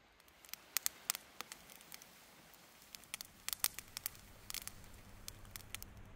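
Wood campfire crackling, with sharp pops coming at irregular intervals.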